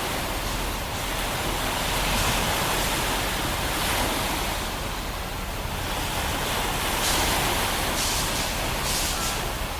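Sea surf washing onto a beach: a steady rushing of waves that swells and eases slightly every few seconds.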